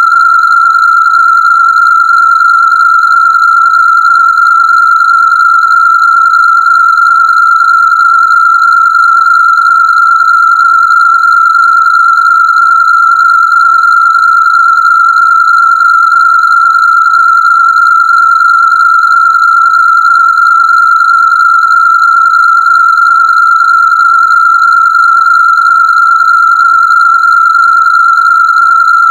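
A synthesized Rife frequency tone: a single loud, steady, high-pitched electronic tone held without change, with fainter higher overtones above it.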